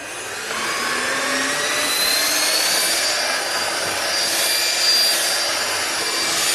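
Bissell Bolt 2-in-1 cordless stick vacuum switched on and run over a rug, its motor whine rising in pitch over the first couple of seconds and then holding steady under a loud rush of air.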